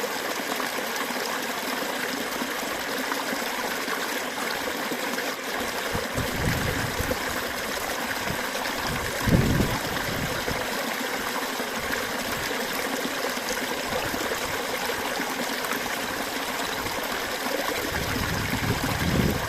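Running water flowing steadily with an even rushing, trickling sound, broken by a few brief low rumbles, the strongest about nine seconds in.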